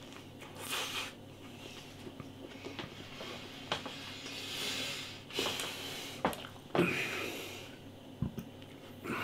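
A man chewing a mouthful of chicken sandwich, with several audible breaths through the nose and scattered small mouth clicks.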